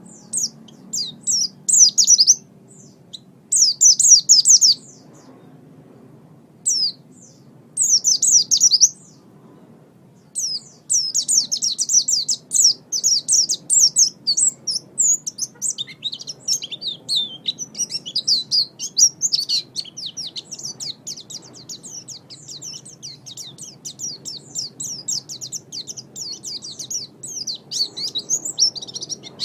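White-eye (pleci) singing high, rapid twittering song: short separate bursts with pauses between them for about the first ten seconds, then a long unbroken stream of fast twittering notes.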